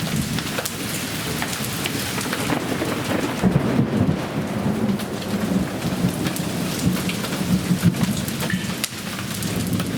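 Hail pelting down in a heavy storm: a dense, continuous clatter of countless stones striking, growing heavier for a few seconds in the middle before easing near the end.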